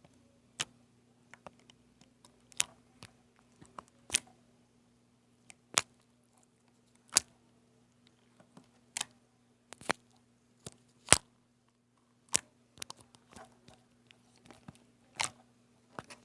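Slime being pressed and stretched, with sharp pops and clicks at irregular moments, about a dozen, as trapped air bubbles burst.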